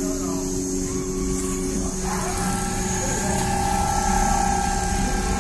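Richpeace CNC rotary-head sewing machine stitching a duvet: a steady mechanical running sound with a low hum, joined about two seconds in by a higher steady whine.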